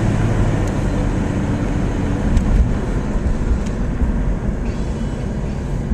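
A motor running steadily, a constant low rumble with no change in pace.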